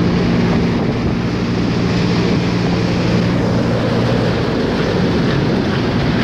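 Hurricane wind rushing through an open concrete parking garage, a loud steady rush with a low steady drone beneath it, with wind buffeting the microphone.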